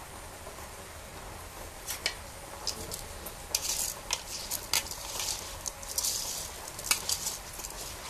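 Raw rice and lentils being mixed by hand with spices, onions and oil in an aluminium pot: uneven rough scraping and rustling strokes of the grains, with a few sharp clicks against the metal.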